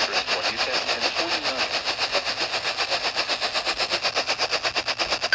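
Loud buzzing interference on a weather-radio broadcast, pulsing about ten times a second, with a faint voice under it. Right at the end, a short EAS data-tone burst begins, the first of the end-of-message bursts.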